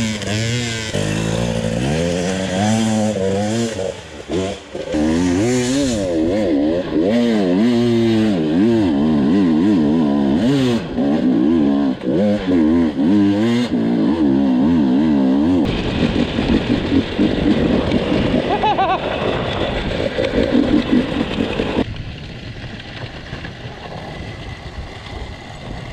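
Enduro motorcycle engine revving, its pitch rising and falling over and over as the throttle is worked on a steep off-road slope. About sixteen seconds in it changes to a rougher, steadier engine note, which drops in level near the end.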